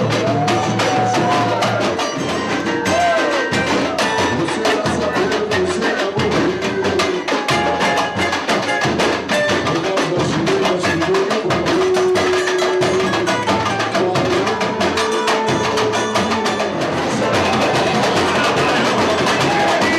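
Samba music with live percussion: a dense, fast, even beat of drums and sharp struck strokes, with a pitched part sliding up and down over it in the first half.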